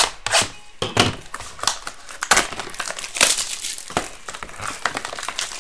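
Cardboard rustling, scraping and crinkling as a Museum Collection baseball card hobby box is opened and its sealed mini boxes are handled and pulled out, in many irregular sharp crackles.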